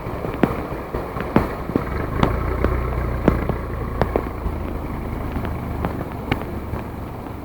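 Heavy rain falling, with drops striking close to the microphone as scattered sharp ticks, over a low vehicle engine rumble that swells in the first half and then eases.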